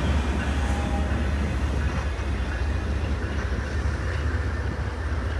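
Norfolk Southern track geometry train rolling past, with a steady low rumble of locomotive and wheels on rail that slowly fades.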